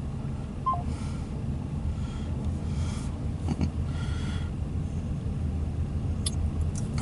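Steady low rumble of a motor vehicle, with a couple of faint clicks.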